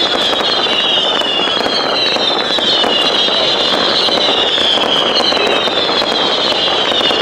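Fireworks display: dense crackling and popping under a high whistling tone that wavers up and down about once a second.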